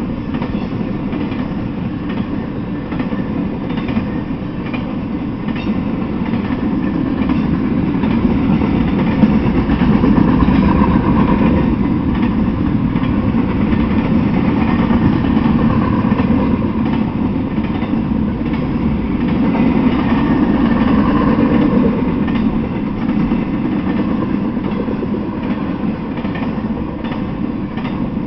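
Intermodal freight train of container and trailer cars rolling past: a steady rumble of steel wheels on rail with faint clicking over the rail joints, a little louder through the middle.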